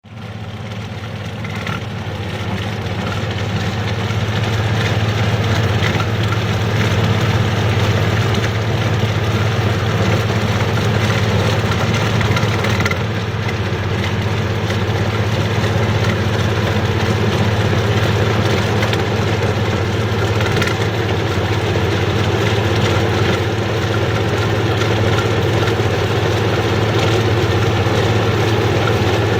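Kubota DC35 combine harvester running with a steady engine and machinery drone that grows louder over the first few seconds.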